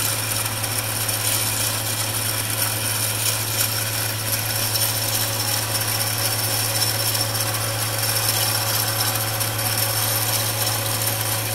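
MX-210V 8x16 benchtop metal lathe running at about 1500 RPM with a steady hum and whir while the tool takes a light facing cut in aluminum.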